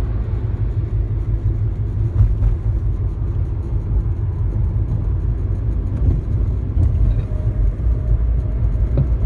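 Steady low rumble of road and engine noise from a car cruising on a highway, heard from inside the cabin.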